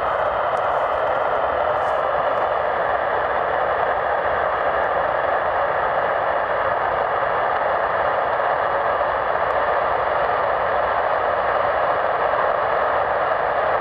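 Avro Vulcan's four Rolls-Royce Olympus turbojets running steadily in a ground engine run: an even rushing sound with a faint high whine above it.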